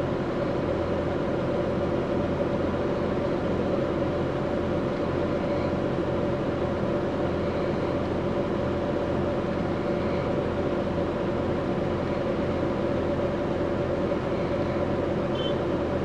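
Steady machine-like drone with a low hum and a few held mid-pitched tones, unchanging throughout.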